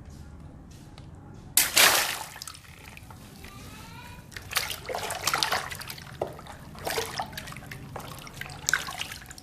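A water balloon bursting with a sudden splash of water about a second and a half in, followed by more splashing and dripping water.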